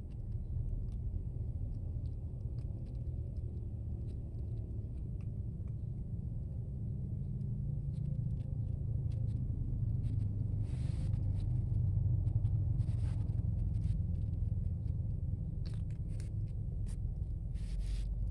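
Kitten crunching dry cat kibble, small irregular clicks, over a steady low rumble of background traffic. A few short hissing noises come about halfway through and again near the end.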